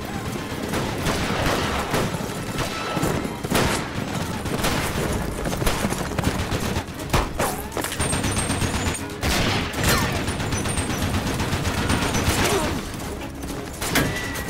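Heavy gunfight: a dense fusillade of many guns firing at once, including a hand-cranked Gatling gun firing in rapid runs, with louder single shots standing out every second or two.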